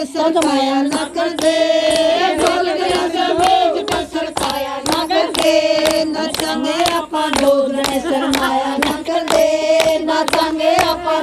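Women singing a Haryanvi folk song (lok geet) with steady rhythmic hand-clapping keeping the beat.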